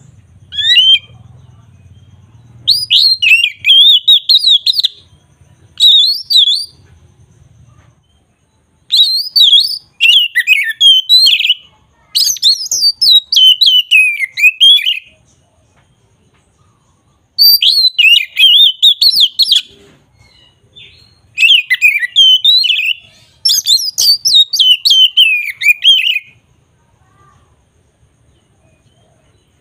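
A songbird singing close by, in repeated phrases of rapid warbling notes, each phrase lasting one to three seconds with short pauses between them.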